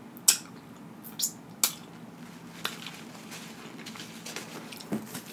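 Wet mouth smacks and finger-licking while eating saucy seafood: a handful of short, sharp smacks spread through, over a faint steady room hum.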